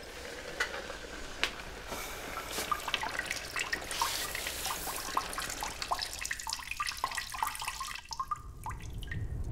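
A child urinating into a toilet bowl: a trickling, splashing stream of liquid hitting water that tails off and stops about eight seconds in.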